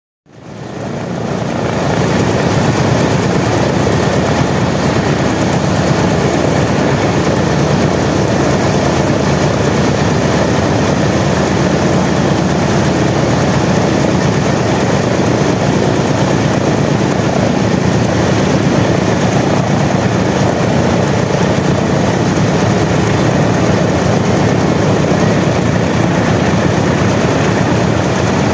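Single nine-cylinder Wright R-1820 Cyclone radial engine of a B-17 bomber running steadily, the No. 1 engine turning its propeller on its own while the other three are stopped. The sound fades up over the first second or two, then holds at one even level.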